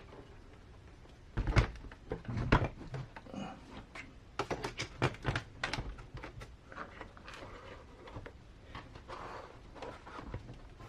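Small hard RC car parts being handled: irregular clicks and knocks, with louder thunks about one and a half and two and a half seconds in.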